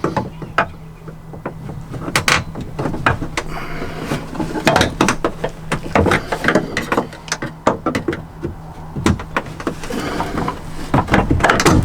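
Irregular clicks, knocks and rattles of a screwdriver and latch parts being worked inside the steel shell of a Land Rover Discovery 4 rear door, over a steady low hum.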